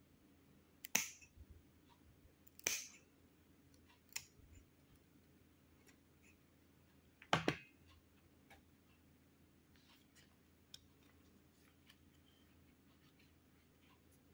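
Spring-loaded pruning shears snipping through the stem base of an orchid: four sharp cuts, the loudest about a second in, near three seconds and at about seven and a half seconds, then a few faint ticks.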